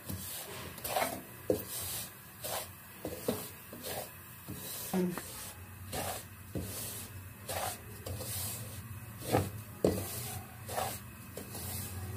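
Black spatula scraping through semolina being roasted in oil in an aluminium kadai on low heat, with short scraping strokes about one or two a second.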